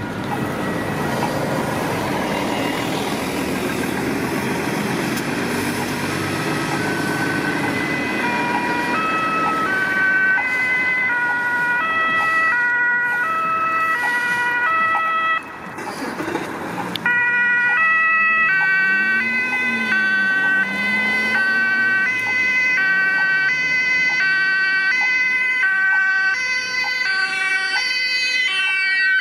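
German ambulance two-tone Martinshorn siren alternating high and low notes over traffic noise. It grows louder as the Mercedes-Benz Sprinter ambulance approaches, drops out briefly about halfway, and resumes louder. Near the end its pitch falls as the ambulance passes.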